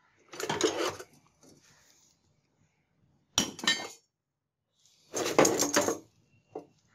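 Rusty scrap metal clattering and clinking as pieces in a junk pile are shifted by hand and an old cleaver is pulled out. The clatter comes in three bursts, with a short clink near the end.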